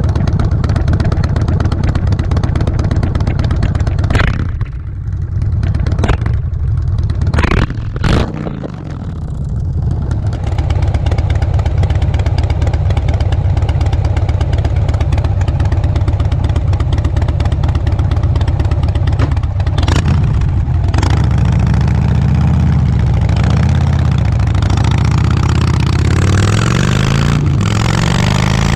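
Harley-Davidson Softail Breakout's V-twin engine, breathing through a Vance & Hines exhaust, running under way. It eases off with a few sharp cracks between about four and eight seconds in, then settles to a steady run and rises in pitch near the end as it accelerates.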